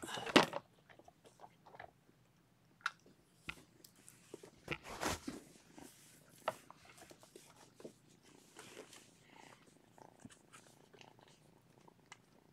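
Cat purring softly, with a few sudden rustles and bumps; the loudest come right at the start and around five seconds in.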